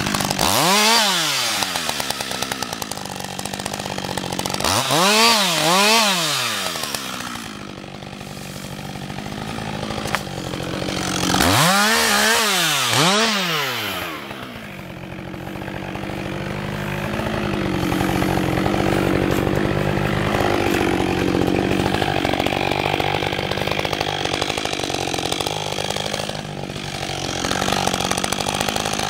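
Husqvarna 562 XP two-stroke chainsaw revving up and down in three short bursts during a felling cut, each burst with two quick rises and falls in pitch. From about halfway on it runs steadily at an even pitch.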